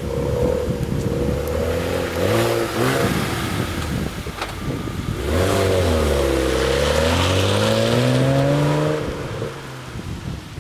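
BMW 335 coupe's straight-six engine through a Dinan free-flow exhaust, its note rising and falling a few times, then louder as the car accelerates past close by, the pitch dipping and climbing, before it drops away near the end.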